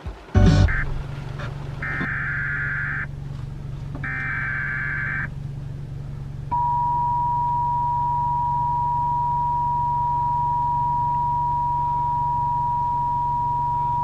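Emergency Alert System signals over a radio broadcast: a sharp click, then two buzzy digital data bursts of about a second each (the SAME header announcing a new warning). About six seconds in, the steady two-tone EAS attention signal starts, over a low hum.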